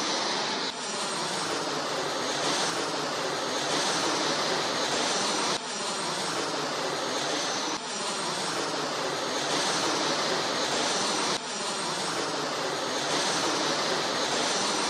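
Jet aircraft engine noise, a steady loud rush with a slowly sweeping hollow tone like a plane passing overhead, cut and restarted abruptly several times.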